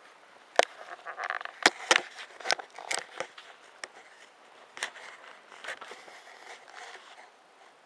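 Kittens scuffling in a play fight: quick scratchy scrabbling of claws with sharp little knocks and thumps, densest in the first few seconds and thinning out toward the end.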